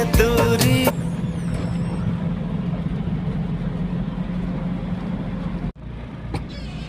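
A song with singing cuts off about a second in. After that a motor vehicle's engine runs steadily with a low rumble and road noise. The sound drops out for a moment near the end.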